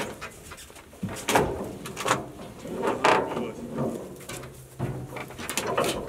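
ARPAL gasoline-powered trailer-mounted wood chipper chewing through a thick log fed into its hopper: irregular cracking and knocking from the cutting over a low engine hum, loudest about a second and a half and three seconds in.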